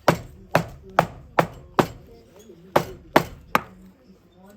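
Hammer blows in a steady rhythm, about two and a half a second: a run of five, a pause of about a second, then three more.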